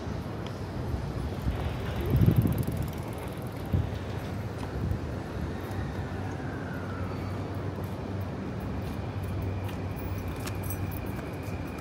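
City street ambience: steady low traffic rumble, swelling louder for a moment about two seconds in, with a short knock near four seconds and a faint steady high whine over the last few seconds.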